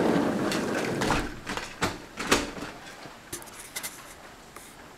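Heavy thunderstorm rain, loud at first and fading away, broken by several sharp clicks and knocks from about a second in.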